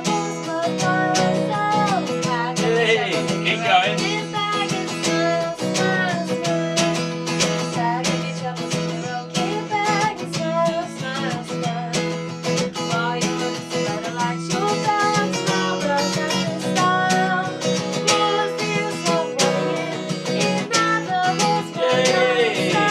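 Music: a strummed acoustic guitar with a voice singing over it, starting abruptly after a brief silence.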